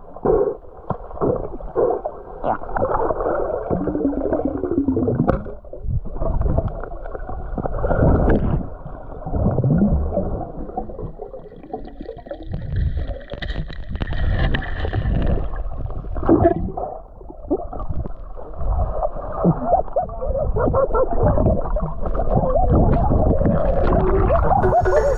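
Muffled gurgling and sloshing of water heard through a submerged camera, with irregular knocks and bumps.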